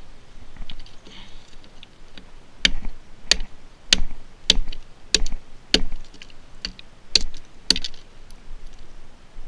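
Gränsfors Bruks mini hatchet chopping into a dry cedar branch held against a driftwood log, shaping wedges: about ten sharp knocks, roughly two a second, beginning about two and a half seconds in.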